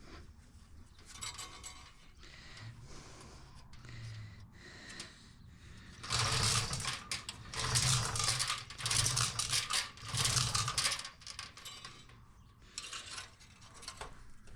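Insulation being pushed and worked into place inside a Hotsy pressure washer's burner housing: light handling and rattling, then about halfway through four rough scraping, rubbing strokes in a row.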